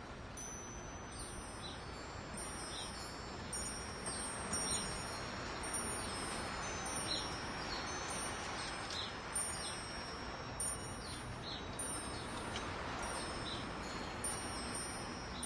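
Wind chimes ringing: high, overlapping tones struck at irregular moments, over a steady noise.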